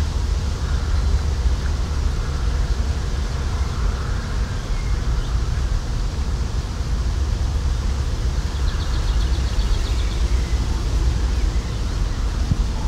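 Outdoor ambience with a steady low rumble, over which faint birds call; about nine seconds in a bird gives a short, rapid high trill, and a few high chirps follow near the end.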